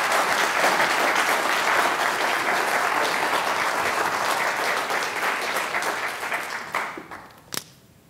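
Audience applauding, dying away about seven seconds in, followed by a single sharp knock.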